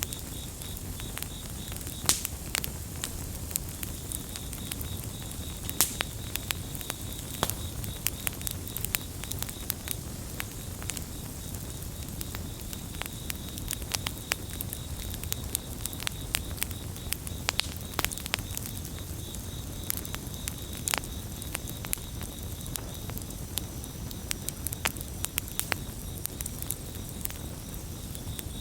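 Campfire crackling: irregular sharp pops and snaps of burning wood, several a second, with louder cracks about 2 s, 6 s and 21 s in, over a steady low rumble of the flames. Crickets chirp in a fast pulsing trill at the start, fading in the middle and returning near the end.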